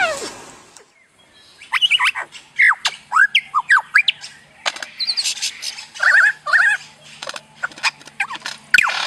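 A short falling whine from a porcupine, then after a brief pause a superb lyrebird's song: a fast, varied run of whistles, chirps, swooping and falling notes and clicks.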